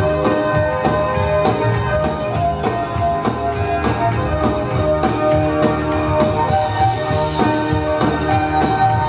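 Live band music with a steady beat: sustained instrumental notes over drums and percussion.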